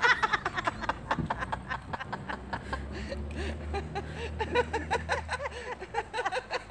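A group of people laughing and chuckling in quick short bursts, loudest at the very start. A low steady hum runs underneath for a few seconds in the middle.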